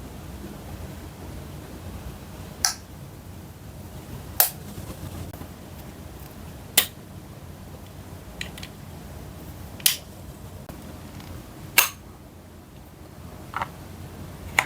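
Bottle caps making sharp single clicks, about every two seconds: six crisp ones and two fainter ones.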